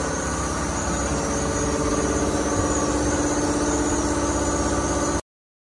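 A motor-driven machine running steadily with an even, rapid pulsing hum, cutting off suddenly near the end.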